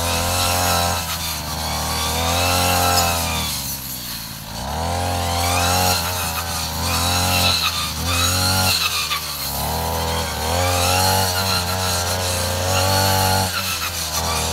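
Backpack brush cutter's small petrol engine running hard while cutting through grass. Its revs keep surging and sagging every second or two, with the deepest drop and recovery about four seconds in.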